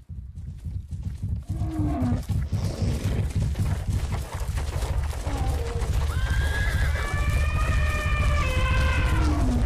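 Stampede of running animals: many hooves pounding over a deep rumble, with animal calls; a long, high, wavering call sounds from about six to nine seconds in.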